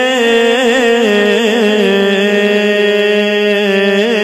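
Devotional singing of a Punjabi Sufi kalam: a single voice holds long, drawn-out notes with small wavering ornaments, without a break.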